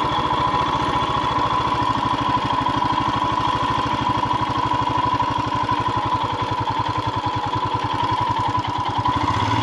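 Royal Enfield Himalayan's single-cylinder engine idling steadily, an even fast run of firing pulses.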